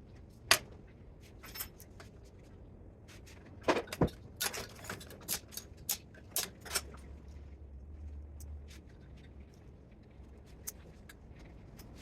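Scattered sharp metallic clinks and clanks of hand tools and loose parts as a spot welder is taken apart: a loud one about half a second in, and a run of them from about four to seven seconds in. A faint low hum rises for a couple of seconds after the middle.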